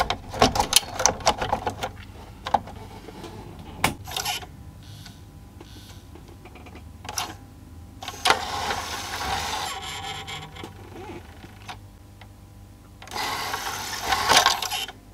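The disc tray loading mechanism of a Proton AX300 MKII CD player (Philips CDM-4 mech) is clicked by hand, then its small loading motor runs in two stretches, the second near the end and louder. The drive belt slips at the end of travel as the mechanism reaches its stop switch, because the motor keeps driving when it should have stopped.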